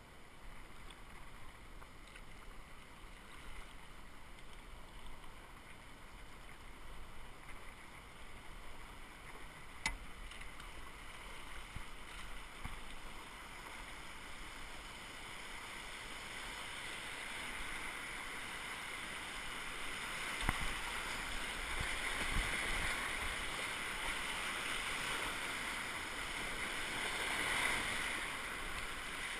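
Rushing whitewater of a river rapid, growing steadily louder over the second half as the boat runs into the waves. Two sharp knocks, one about ten seconds in and one about twenty seconds in.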